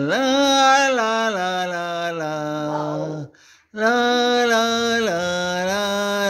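A single voice singing a wordless melody in long held notes, with a short break a little past halfway.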